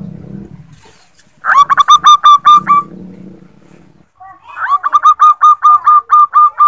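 Zebra dove (perkutut) cooing: a quick run of short, repeated staccato notes about a second and a half in, then a longer run through the second half. The uploader gives it as a female's call, used as a lure to make male perkutut answer.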